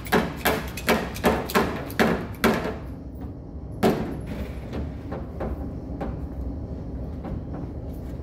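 A rapid string of about eight gunshots over two and a half seconds, then a single shot about a second later, each followed by a short echo.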